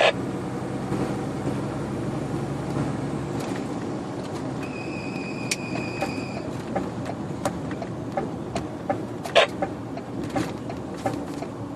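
Lorry engine and road noise heard from inside the moving cab, with small rattles and clicks throughout. A thin, high steady tone sounds for about two seconds midway, and there is a sharp crack near the end.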